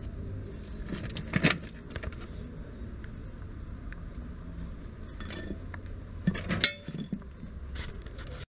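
Scattered knocks and metallic clinks of a steel floor jack, with a wooden board on its saddle, being handled and set under a pickup's lower control arm. There is a sharp knock about a second and a half in and a cluster of clinks about two-thirds of the way through, over a steady low rumble.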